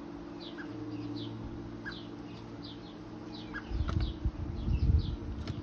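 Small garden birds chirping over and over with short, high, falling chirps, over a low steady hum. About two-thirds of the way through, a second and a half of low rumbling thumps is the loudest sound.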